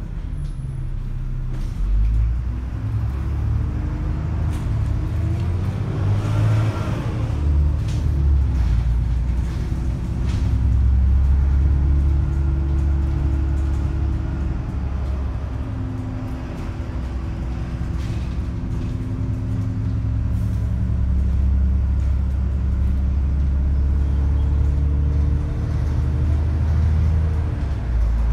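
Heard from inside a moving bus: the engine's steady low rumble, its drone rising and falling in pitch as the bus speeds up, slows and changes gear. About six seconds in there is a brief swell of louder noise.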